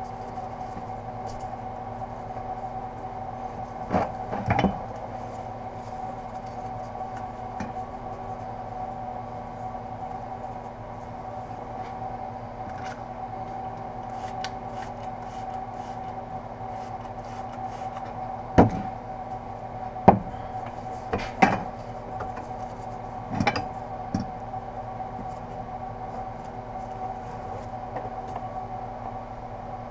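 Steel exhaust header pipes being handled on a wooden workbench while exhaust wrap is wound around them, giving occasional sharp knocks and clicks, a few of them close together near the middle. A steady hum of several tones runs underneath.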